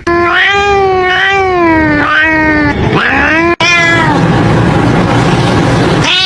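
Cat meowing: a long, drawn-out, wavering meow, then a shorter rising one. After an abrupt cut comes a brief falling meow, followed by about two seconds of loud, steady noise.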